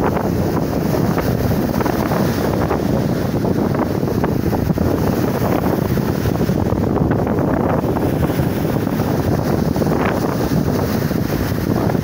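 Sea waves breaking and foaming onto the shore in a continuous wash, under steady wind buffeting the microphone with a low rumble.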